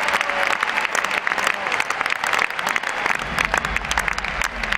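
Large arena crowd applauding, many hands clapping together in a dense patter, with a low rumble joining about three seconds in.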